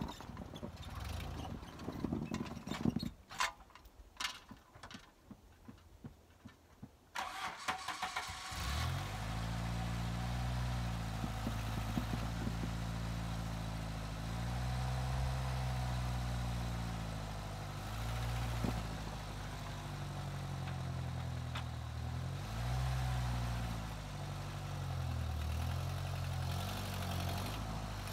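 A few scattered knocks and clicks, then about a third of the way in a Jeep's engine starts and keeps running, its pitch rising and falling as it is driven slowly over snow.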